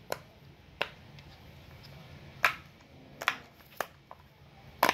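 Silicone pop-it fidget toy being pressed, its bubbles popping in about six sharp, irregularly spaced pops.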